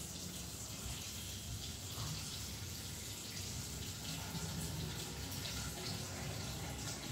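Water running steadily from a kitchen tap into a stainless steel sink, a constant hiss.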